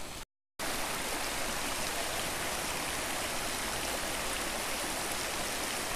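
Shallow, rocky mountain stream running over stones: a steady rush of water, after a brief gap of silence just after the start.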